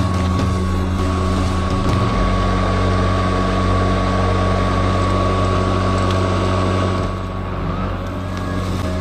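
Greenworks 80V battery-powered lawn mower running as it is pushed through grass: a steady motor and blade hum with a constant whine, dipping slightly in loudness about seven seconds in.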